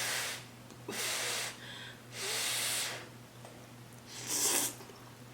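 A person breathing heavily close to the microphone: four loud, hissing breaths, each about half a second to a second long, spaced a second or so apart.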